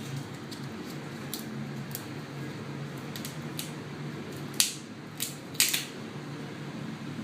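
Small sharp clicks and snaps of tools and plastic parts being handled while a smartphone is taken apart, a few light ones and then three louder ones about two thirds of the way through, over a steady low hum.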